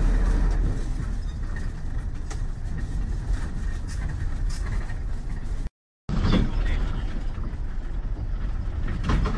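Bus interior while driving: a steady low engine and road rumble with a few short knocks. The sound cuts out for a moment just past the middle and resumes.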